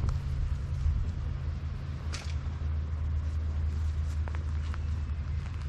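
Steady low engine rumble, with a brief rustle about two seconds in.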